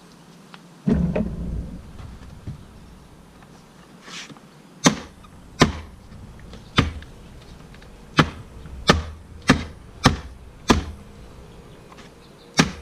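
Motorcycle parts being refitted by hand, most likely the plastic bodywork being pushed and knocked into place: one heavy thump about a second in, then about nine sharp knocks spaced irregularly, roughly half a second to a second apart.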